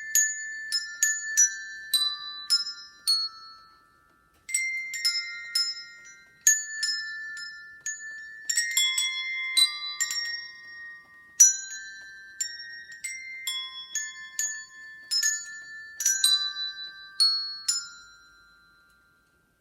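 Hand bells rung one note after another to play a Christmas tune, each note a clear struck tone that rings on and overlaps the next. The playing stops briefly about four seconds in, then the tune resumes, and the last notes die away near the end.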